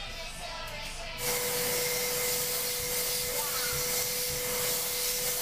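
A small motor starts abruptly about a second in and runs with a steady hiss and a steady whine.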